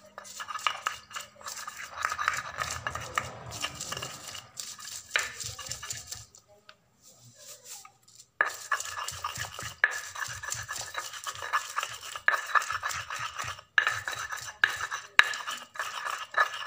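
Stone pestle grinding and scraping garlic, shallots and shrimp paste on a flat stone mortar (cobek) in quick rubbing strokes. It stops for about two seconds in the middle, then starts again.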